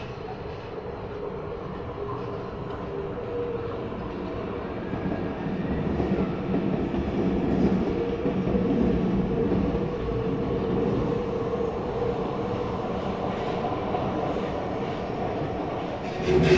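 Tokyu electric commuter train running past, its rumble growing louder about five seconds in and holding steady, with loud wheel clacks near the end.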